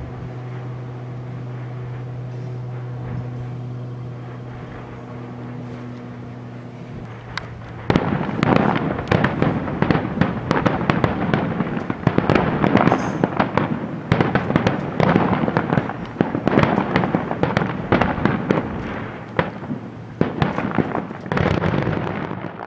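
Fireworks display: for the first several seconds a steady low hum with a few scattered bangs, then about eight seconds in a dense, loud barrage of rapid bangs and crackles from many shells bursting at once, running on until it cuts off suddenly.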